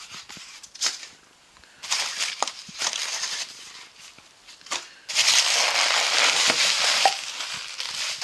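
Bubble wrap and cardboard packing being handled and pulled out of a box: crinkling and rustling in bursts, with small crackles, and the longest and loudest stretch in the second half.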